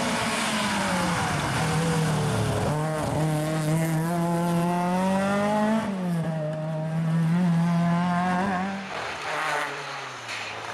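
Opel Manta 400 rally car's four-cylinder engine driven hard past on a gravel-strewn stage. The engine note falls as the car slows for the bend, then holds high under load with a drop about six seconds in, and fades as it moves away near the end.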